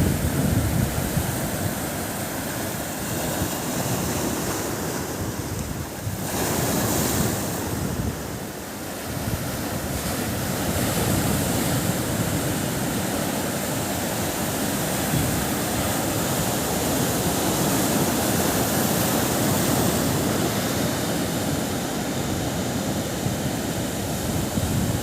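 Sea surf washing onto a beach in a continuous rush that swells and eases, with wind rumbling on the microphone.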